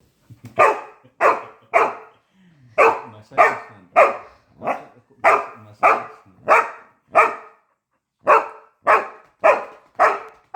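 A pet dog barking over and over, about one sharp bark every half second or so, with a brief pause about three-quarters of the way in. This is demand barking: the dog is insisting on its turn for a massage.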